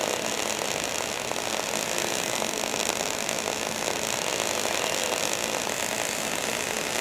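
MIG (gas metal arc) welding arc burning steadily as an uphill hot pass is laid on a vertical plate joint.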